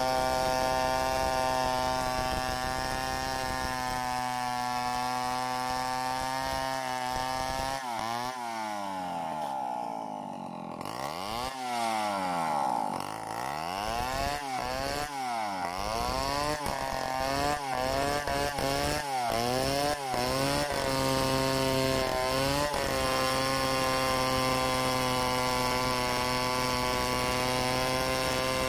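Two-stroke chainsaw ripping lengthwise along a log in a freehand milling cut, running at a steady high pitch. From about a third of the way in, the engine speed dips and climbs again and again for several seconds as the chain bogs under load in the cut and frees again, then it settles back to a steady pitch.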